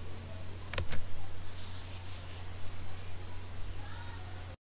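Background room tone between narrated lines: a steady low mains hum with faint, evenly repeating high chirps, and two soft clicks about a second in. The sound drops out to dead silence for a moment near the end.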